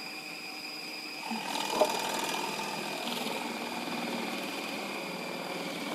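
Electric food processor running with a steady high whine while it shreds raw cabbage pushed down the feed tube. About a second and a half in the sound gets louder and rougher as the cabbage reaches the shredding blade, with one sharp click just before two seconds in.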